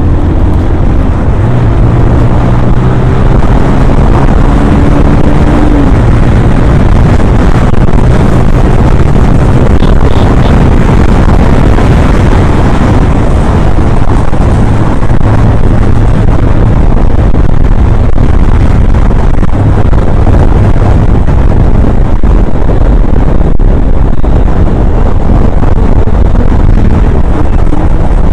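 Bajaj Pulsar 180's single-cylinder engine running steadily while under way, its pitch rising slightly during the first few seconds, with wind buffeting the microphone throughout.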